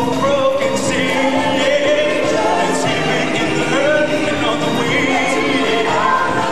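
Live stage-show music: singers singing into microphones with a choir-like chorus, amplified through the theatre's sound system.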